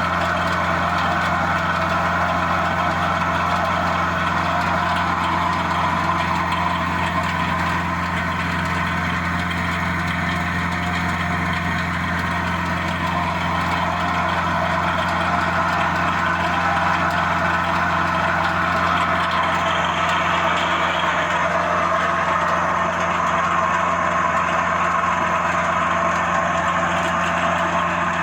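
Industrial aeration air blower for an effluent treatment plant running steadily: a constant low hum under a dense whirring rush of air and machinery, with a faint high whine joining about two-thirds of the way through.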